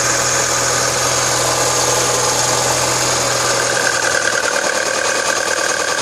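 2011 Mini Cooper's 1.6-litre four-cylinder engine running steadily at idle. About four seconds in, a low hum drops out and a higher tone comes up.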